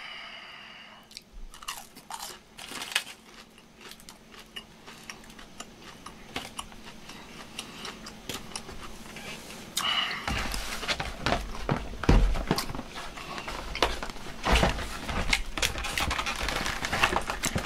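Crisp crackling and rustling, then from about ten seconds in loud, dense crunching as a Burger King crispy taco's fried shell is bitten and chewed.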